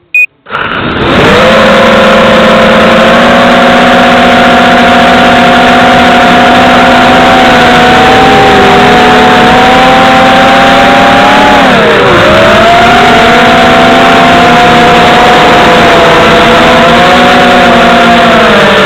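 FPV racing quadcopter's electric motors and propellers whining loudly and steadily at flying throttle. The pitch sags and recovers about two-thirds of the way through and again near the end as the throttle changes. A short beep comes just before the motors start.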